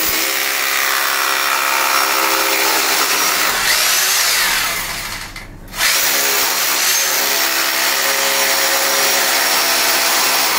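Bosch rotary hammer drilling into a ceramic-tiled wall, running steadily in two long runs with a brief stop about five seconds in.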